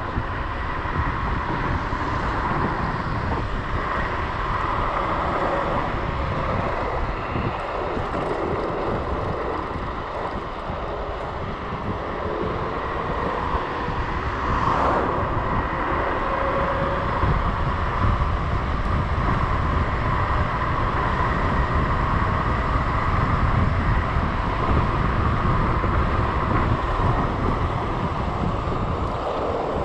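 Wind rushing over the camera microphone and tyre rumble from an electric scooter riding fast on asphalt, with a steady electric-motor whine underneath that drifts slowly in pitch as the speed changes.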